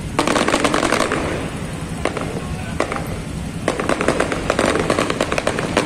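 Fireworks crackling: a dense run of rapid pops for about two seconds, a brief lull, then a second dense run of crackling from a little past midway.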